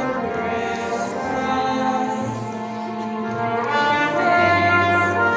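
Men's barbershop chorus singing held close-harmony chords, a cappella.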